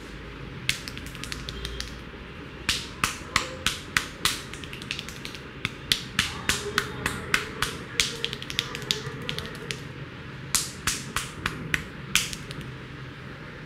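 A barber's hands striking and snapping during a head massage: a quick, uneven series of sharp slaps and snaps, about two to three a second, with a short pause near the middle.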